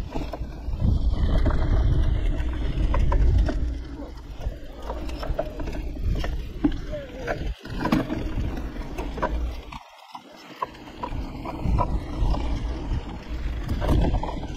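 Ride noise from an action camera on a bicycle moving along a woodland trail. Wind buffets the microphone, and tyres run over the trail while the bike rattles and clicks over bumps. The sound briefly cuts out twice, about seven and a half and ten seconds in.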